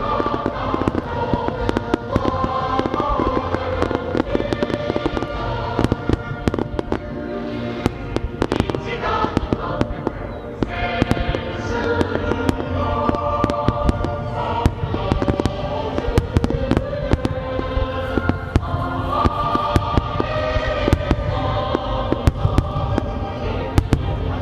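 Aerial fireworks shells bursting with many sharp bangs and crackles over music playing throughout.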